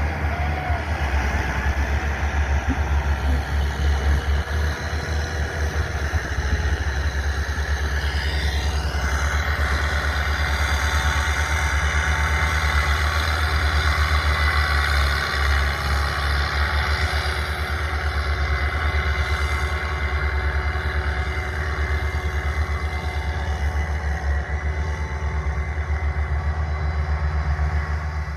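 Heavy vehicle engine running steadily with a deep rumble, and a whine that rises in pitch about eight seconds in.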